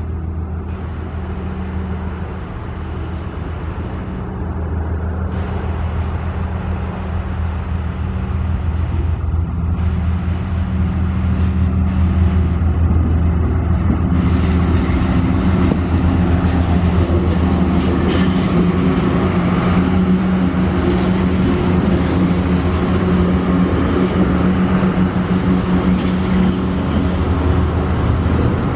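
Two TasRail TR class diesel locomotives hauling a freight train slowly past, their engines making a steady low drone that grows louder as they draw near and go by. Near the end the container wagons start rolling past.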